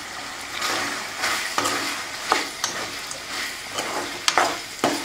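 Chicken pieces frying in oil in a metal kadai, sizzling steadily, while a metal ladle stirs in spice powders with irregular scraping knocks against the pan.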